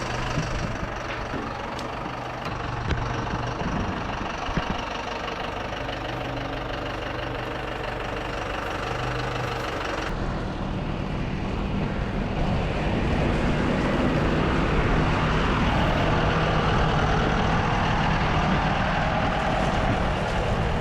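A vehicle engine running steadily. About ten seconds in the sound changes abruptly to a louder, deeper engine note.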